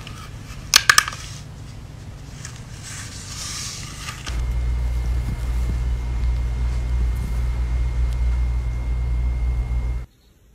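Cat purring, a steady low rumble that becomes much louder about four seconds in and cuts off suddenly near the end. A few sharp clicks come about a second in.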